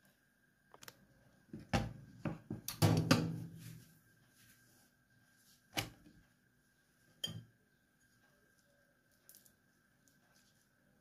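Kitchen handling sounds: a ceramic plate and crepes moved about on a wooden cutting board and countertop, giving a flurry of knocks and clatter in the first few seconds, then two single sharp knocks.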